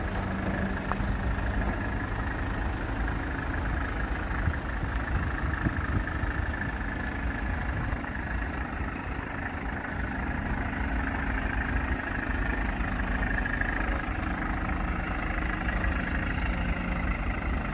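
Kia Bongo III 1.2-ton truck's engine idling steadily.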